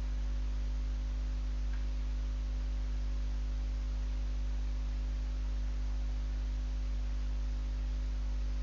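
Steady low electrical hum, mains hum picked up in the recording chain, with a faint even hiss beneath it.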